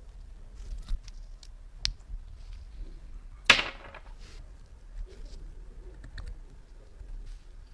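Scattered light clicks and taps of small objects being handled, with one louder short burst of noise about three and a half seconds in that fades over about half a second.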